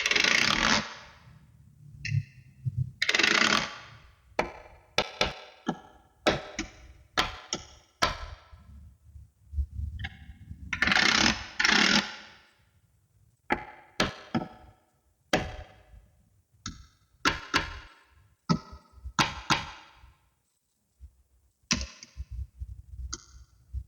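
Small magnetic balls clicking as they snap together, in irregular bursts of sharp clicks, with a few longer rattling stretches lasting about a second.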